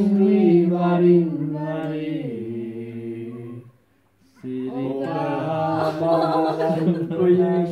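A man singing unaccompanied, holding long steady notes. About four seconds in he breaks off for half a second, then sings on.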